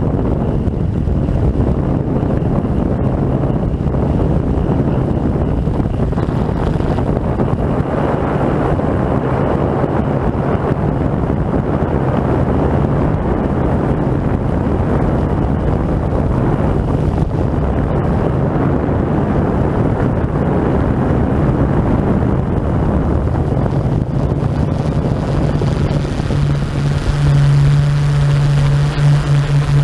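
Yuneec Typhoon G quadcopter's motors and propellers droning steadily in flight, heard from on board, with wind buffeting the microphone. Near the end the low hum grows louder and steadier.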